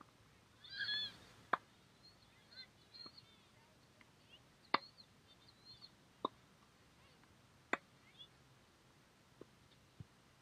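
Tennis balls being hit and bouncing on a hard court: about half a dozen sharp pops a second or two apart. Faint bird chirps sound between them, with a short louder call about a second in.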